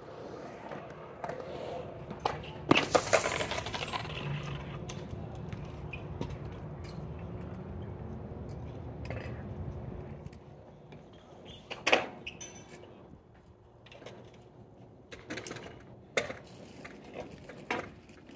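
Skateboard wheels rolling on a concrete bowl in a steady rumble, with a burst of loud clattering knocks from the board about three seconds in. The rolling stops about ten seconds in, and a few separate sharp knocks follow.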